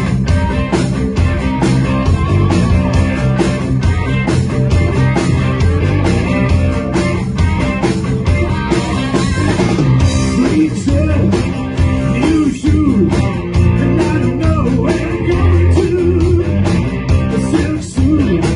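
Live classic rock band playing: electric guitar, bass guitar and drums with a steady beat.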